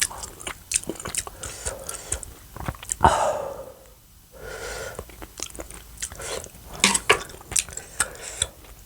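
Close-miked eating sounds: biting and chewing, with many sharp, crisp clicks and a louder burst about three seconds in.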